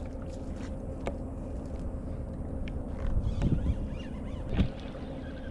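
Wind rumbling on the microphone, with two dull knocks about three and a half and four and a half seconds in.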